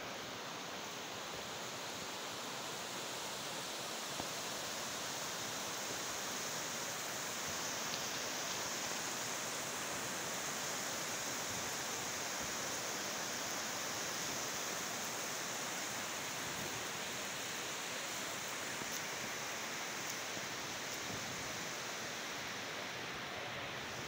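Surf washing in over a wide, flat sandy beach: a steady, even hiss of shallow breaking waves.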